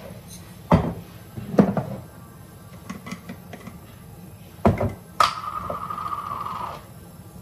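Kitchen handling noises: three dull knocks of things being moved and set down, then a sharp click and a steady high-pitched hiss lasting about a second and a half.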